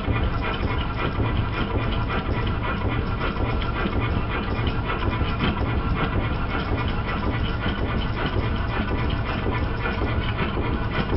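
Vertical multi-cylinder model steam engine running steadily under live steam, a rapid, even clatter of its motion and valve gear.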